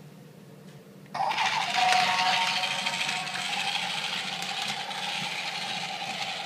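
LEGO Duplo battery toy train starting suddenly about a second in, then running on its plastic track: a steady motor whir with a constant whine and the rattle of plastic wheels on the track.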